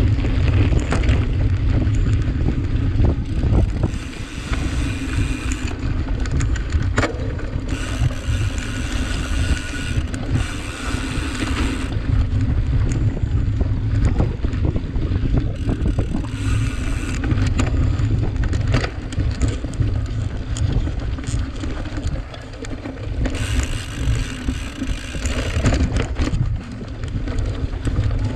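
Wind rumbling on a microphone riding along on a cyclocross bike at race speed, with frequent rattles and knocks from the bike over rough ground. A brighter hiss swells and fades a few times.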